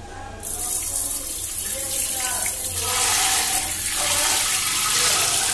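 Handheld bidet sprayer turned on about half a second in, spraying a steady jet of water into a toilet bowl with a loud hiss.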